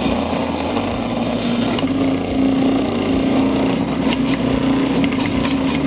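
Breville Sous Chef 16 Pro food processor motor running with a steady hum, shredding a carrot pushed through its coarse shredding disc, with a few sharp ticks in the second half.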